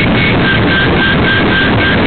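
Electronic dance music with a steady beat and a short synth figure that repeats, alternating between two notes.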